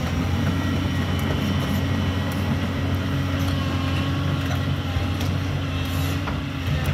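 Diesel engine of a Doosan DX225 crawler excavator running steadily, with a few faint clicks over its drone.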